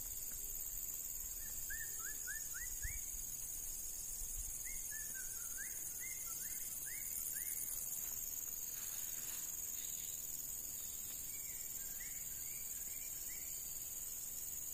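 Steady, high-pitched drone of a night insect chorus, crickets or katydids, with three runs of short, rising chirps from another animal, each run a few chirps a second.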